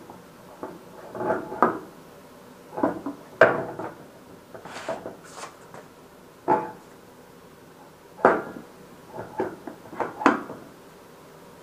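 Irregular metal clunks and knocks as a Ducati Monster 1100's rear wheel is worked onto its hub, its drive pins seating into the wheel.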